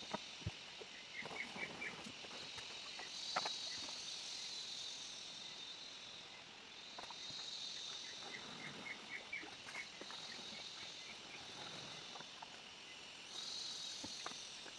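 Forest insects buzzing in a high, steady chorus that swells and fades several times. A short run of quick high notes comes twice, and there are scattered clicks and knocks.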